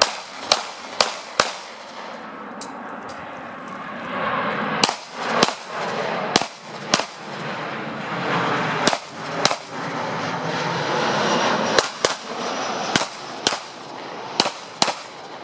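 Pistol shots fired in quick pairs, double taps about half a second apart, around eight pairs with short gaps between them.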